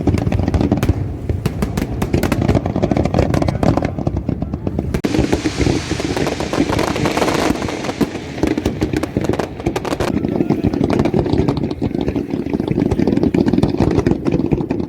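Fireworks going off: a dense run of rapid, irregular crackles and pops over a steady low rumble.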